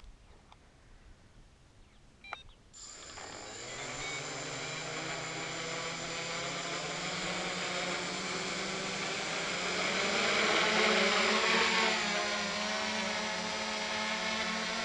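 Hexacopter's six electric motors and propellers starting up about three seconds in, just after a short beep, then a steady multi-tone whirring hum that swells as the throttle comes up and the craft lifts off into a hover.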